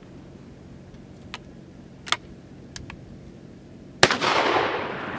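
Henry single-shot 12-gauge break-action shotgun being reloaded: a few sharp metallic clicks as the action is worked, then about four seconds in a single loud shot whose echo fades away.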